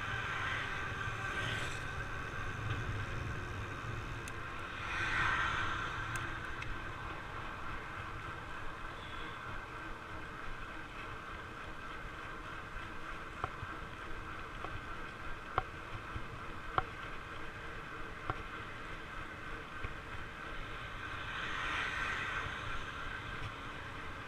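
Fat bike rolling along asphalt: a steady hum from the wide knobby tyres over low wind rumble on the microphone. Cars pass twice, a rising and falling swell about five seconds in and again near the end, and a few sharp ticks come in the middle.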